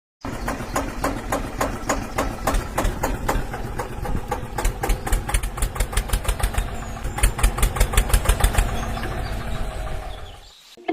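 An engine running with an even chugging beat of about five knocks a second, which quickens about seven seconds in and then fades away near the end.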